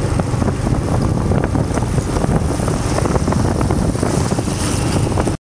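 Riding noise from a moving motorcycle: wind rumbling on the microphone over the running engine. It cuts off suddenly near the end.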